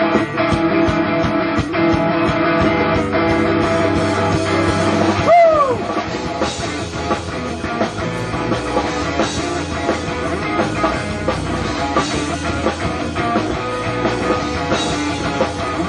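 Rock band playing live without vocals: electric guitars, bass and drum kit. About five seconds in, a short falling swoop stands out.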